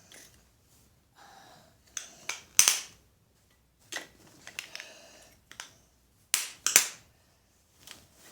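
A person sneezing several times: gasping 'ah' breaths build up to sharp sneezes, the loudest about two and a half seconds in and two more in quick succession around six and a half seconds.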